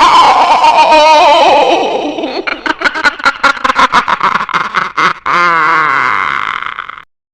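A witch's cackling laugh. A wavering high voice falls in pitch, then breaks into a run of quick "ha-ha" bursts about four a second, then rises into a shrill wavering cackle that stops abruptly near the end.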